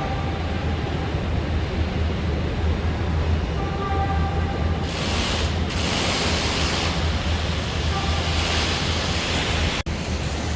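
Factory floor background noise: a steady low hum under a broad rushing noise, with a few stretches of louder hiss about five, six and eight seconds in.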